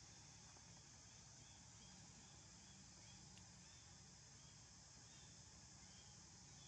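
Near silence: faint outdoor background with a steady high hiss and a low hum, and a few faint short chirps.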